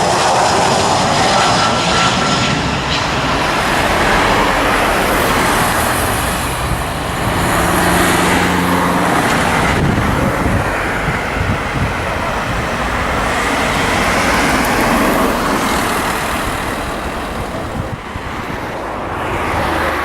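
Jet airliner engines at the airport: a loud, steady roar with a faint high whine at the start.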